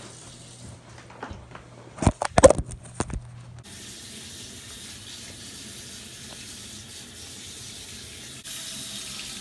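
A low steady hum with a cluster of loud knocks and clatter about two seconds in. Then, after an abrupt change, a steady hiss of water running from a tap into a sink.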